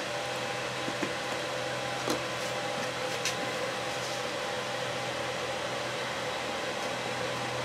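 Steady whir and hum of a running fan, with a few faint clicks about one, two and three seconds in.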